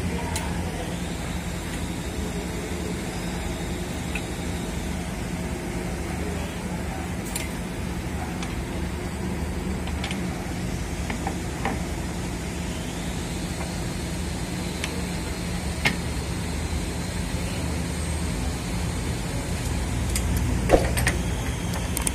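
A steady low machine hum, with a few sharp metallic clicks and knocks from spanner and pipe-wrench work on the air compressor pump's head and pipe fittings.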